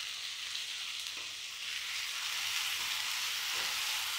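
Sliced onions and chopped tomatoes sizzling in hot oil in a nonstick frying pan, stirred with a wooden spatula with a few soft scrapes and knocks. The sizzle is a steady hiss that grows a little louder about halfway through.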